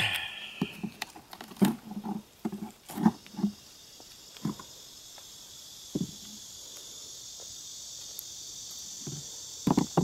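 Wooden beehive frames knocking and scraping against the hive box as they are pried loose and lifted out, with a cluster of knocks in the first few seconds and single ones later. A steady high-pitched insect drone comes up a few seconds in and carries on underneath.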